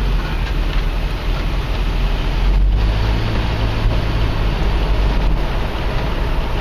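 Steady low road rumble and wind noise inside a moving car driving slowly along a street.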